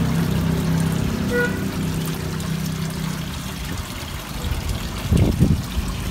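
Water trickling and pouring steadily into a fish pond, with a splash about five seconds in as a fish breaks the surface.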